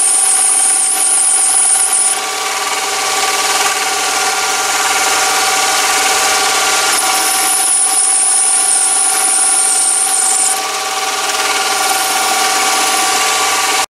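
Chinese mini lathe running steadily, its motor and gearing giving a constant whine, while a ball turning attachment cuts a concave form in the end of a bar. A high, wavering squeal from the cut comes in at the start and again from about seven to ten seconds in.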